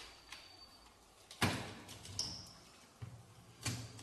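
Clicks and knocks of plastic and sheet-metal parts as a DVD player's disc-loader mechanism is handled inside its opened chassis. The loudest knock comes about a second and a half in, and another strong one near the end.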